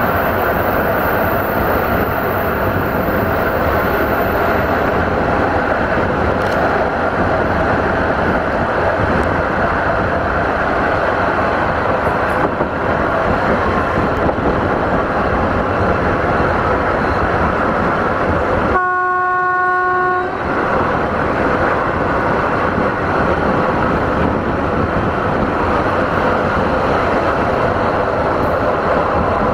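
Passenger train running along the line, heard from a coach window: a steady rush of wheels, rails and wind. About two-thirds of the way in, the locomotive's horn sounds once, a single held note lasting about a second and a half.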